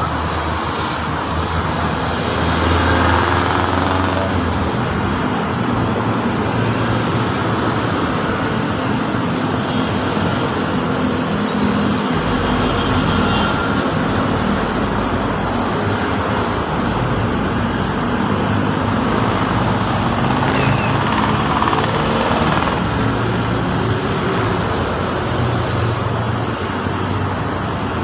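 Steady road traffic: cars, SUVs and a light truck driving past, with engines running and tyres on the road.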